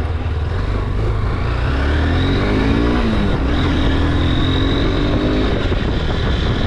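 Honda CB motorcycle engine pulling away under acceleration over a steady deep rumble. Its pitch climbs, drops at a gear change about three seconds in, then climbs again.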